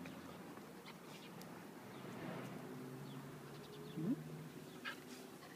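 Faint animal sounds, with one short rising call about four seconds in.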